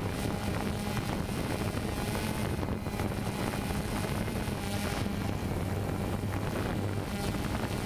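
DJI Phantom 2 quadcopter hovering close by, its motors and propellers giving a steady hum over a wide rushing hiss.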